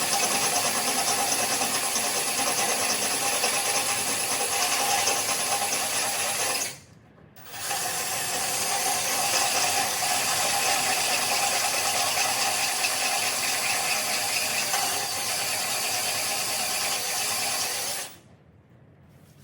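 Electric drill running steadily under load, boring out a broken bolt with an oversized bit. It stops for about a second around seven seconds in, starts again, and stops near the end.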